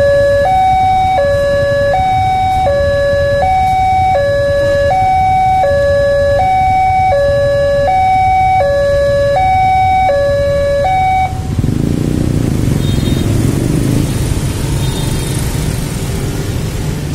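Railway level-crossing warning siren sounding an even two-tone high-low alternation, about one full cycle every second and a half, that cuts off suddenly about eleven seconds in. A steady low rumble runs underneath and carries on after the siren stops.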